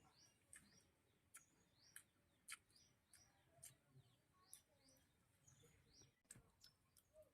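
Near silence broken by faint, short bird chirps, each falling in pitch, about two a second, with a few soft clicks among them.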